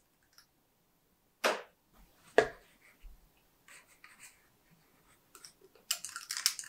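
Handling sounds while chocolate muffin batter is spooned into paper baking cups: a spoon knocking and scraping, with two sharp knocks about a second and a half and two and a half seconds in. Quick crinkly clicks of paper cups being handled near the end.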